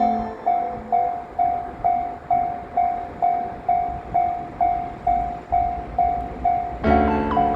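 Japanese railway level-crossing warning bell sounding its steady electronic ding, about two strikes a second, with the low rumble of a train passing over the crossing towards the end. Background music comes back in near the end.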